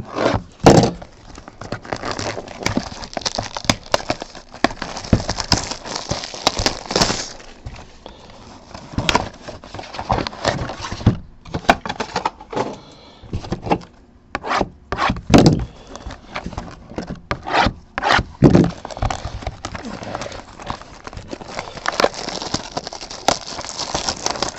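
Plastic wrapping and a cardboard trading-card box handled and torn open by hand: continuous crinkling and rustling with many sharp crackles and clicks, busiest in the first few seconds and again near the end.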